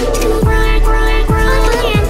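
Electronic dance music with a heavy, steady bass line and held synth tones, punctuated by deep kick drums that drop in pitch, about one a second.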